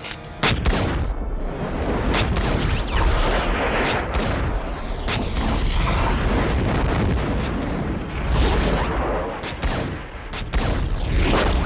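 Cinematic gunfight sound design: a string of handgun shots and deep booms, with slowed-down whooshing bullet passes and a deep rumble as the action goes into slow motion, mixed with film score music.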